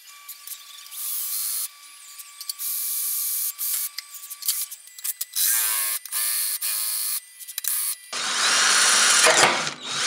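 Electric drill with a twist bit boring into brass, running in short stop-start bursts. Near the end comes a longer, louder run with a rising motor whine.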